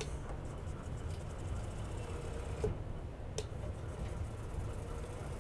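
Teknic ClearPath servo motor driving the Z axis of a G0704 CNC mill, running dead quiet: only a faint low hum, with a faint steady whine for about a second in the middle and two short clicks a little later.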